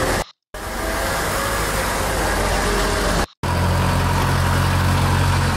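Car sound-effect clips played back one after another, each cut off abruptly by a short gap: car noise, then a car engine running steadily with a low hum from about three and a half seconds in.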